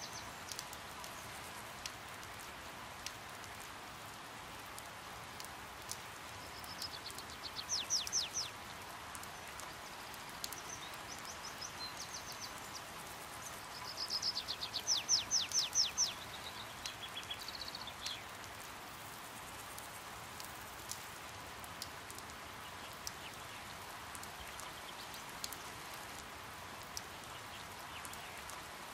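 Steady rain falling, with scattered drips. A bird twitters in two bursts of rapid, high, downward-sweeping notes: a short burst about seven seconds in and a longer one from about fourteen seconds.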